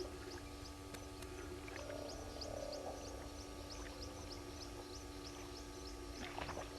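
Waterhole ambience: short high chirps repeating about three times a second over a steady hum of tones, with a short low moaning sound about two seconds in and a brief cluster of noises near the end.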